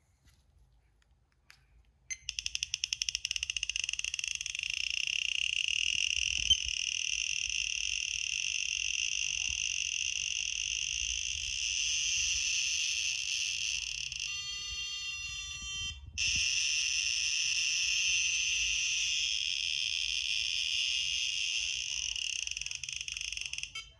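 Radiation detector held close to uraninite ore, clicking so fast that the clicks merge into a continuous high-pitched buzz: a very high count rate from the radioactive specimen. The clicks start about two seconds in, and a stepped beeping pattern cuts in briefly past the middle before the buzz resumes.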